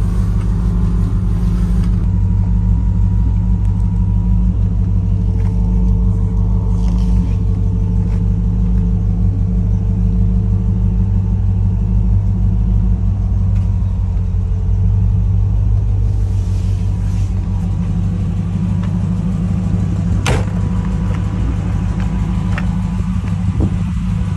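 LS1 V8 crate engine of a 1956 Chevrolet custom truck idling steadily through ceramic-coated headers and a stainless-steel exhaust, a low, even rumble. A single light click sounds near the end.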